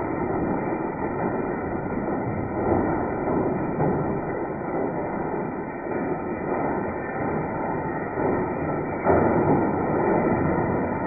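Cement mixer tumbling a load of steel nuts and bolts in oil and fuel, a continuous loud rattling and grinding as the parts knock the rust and crud off each other. It gets slightly louder about nine seconds in.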